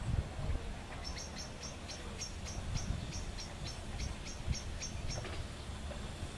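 A quick, even series of short high chirps, about four a second, starting about a second in and stopping about five seconds in, over a low outdoor rumble.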